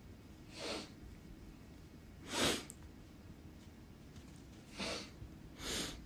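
Small white curly-haired dog sneezing: four short, sharp sneezes, the second the loudest.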